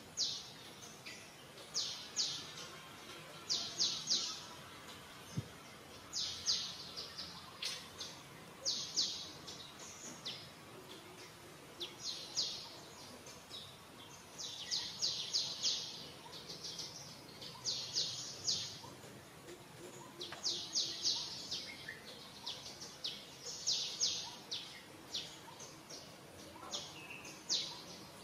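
A bird chirping: bursts of several quick high notes, repeated every two to three seconds.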